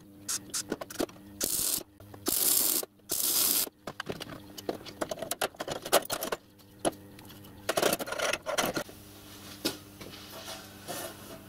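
Electric arc welder making three short tack welds on steel conduit tubing, each lasting about half a second, in the first four seconds. Then clinks, knocks and scrapes as the steel frame and alignment bar are handled, with a faint steady hum underneath.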